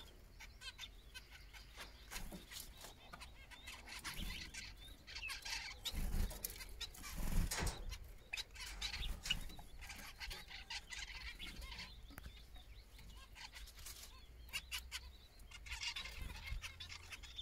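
A broody hen clucking softly and on and off to her small chicks.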